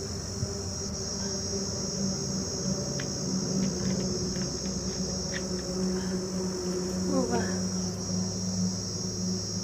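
Steady high-pitched insect chirring in the background over a low steady hum, with a few faint clicks and, about seven seconds in, one short sound falling in pitch.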